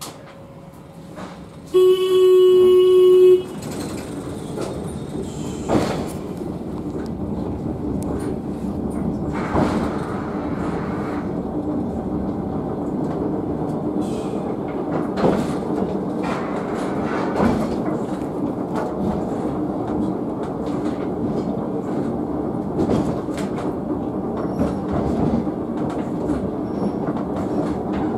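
Sakamoto Cable funicular car setting off downhill: a loud steady signal tone of about a second and a half near the start, then the steady rumble of its wheels on the rails with a low hum and occasional clacks as it runs down the slope.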